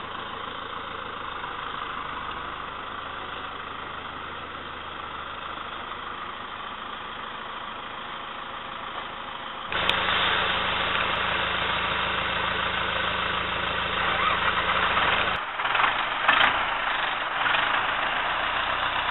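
Farm tractor diesel engines idling steadily. About ten seconds in the engine sound jumps abruptly louder with a stronger hum. Near the end, after another abrupt change, the red Zetor tractor's diesel runs close by with a few short sharp sounds.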